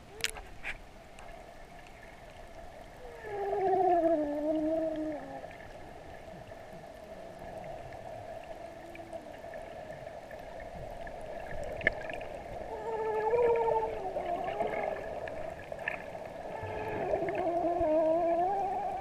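Swimming-pool water heard from a submerged camera: a steady muffled underwater hum, with three stretches of muffled, wavering voices carried through the water.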